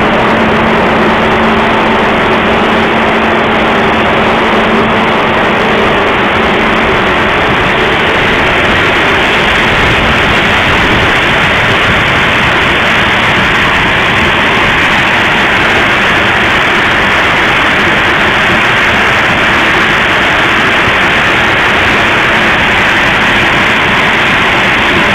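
TECO corn dryer running: a loud, steady rushing roar. A low hum with an overtone sits under it for the first seven seconds or so, then fades out.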